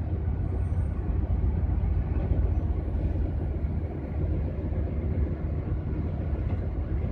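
GAZelle van's engine and road noise heard inside the cab while driving: a steady low drone.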